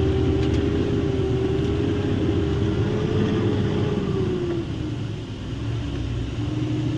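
Heavy truck's engine running under way, heard from inside the cab: a steady drone with low rumble and road noise. The engine note falls and softens briefly about five seconds in, then picks up again near the end.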